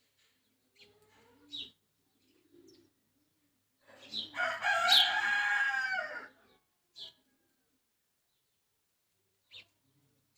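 A rooster crowing once, a single long call that falls in pitch at the end, with a few short high bird chirps before and after it.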